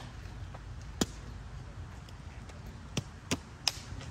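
Scattered sharp smacks: a single one about a second in, then three quick ones in a row, about a third of a second apart, near the end.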